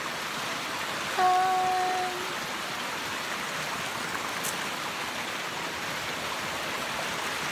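Heavy rain falling steadily as an even hiss. About a second in, a single held note sounds for about a second over it.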